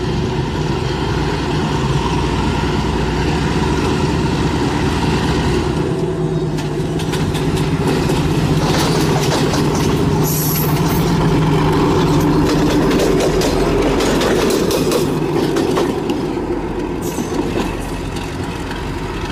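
Alstom Class M9 diesel-electric locomotive running light, its engine a steady drone. Through the middle of the passage the wheels click rapidly over rail joints and points, and two brief high-pitched squeals come at about ten and seventeen seconds in.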